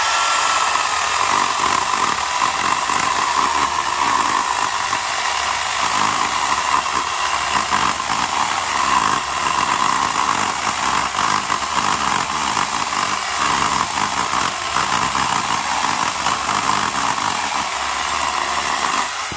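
Black+Decker CS1518 corded electric chainsaw, its 15-amp motor running at full speed with the chain cutting through a thick tree limb: a steady, high motor whine under load, unbroken for the whole cut.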